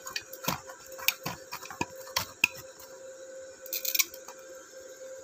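Stick-welding electrode on an Ingco 130-amp welding machine tapped against a steel plate and sticking: irregular sharp clicks and crackles as brief arcs strike, with a short crackling burst near four seconds in, over a steady faint hum. The welder's anti-stick protection is cutting the current each time the rod sticks.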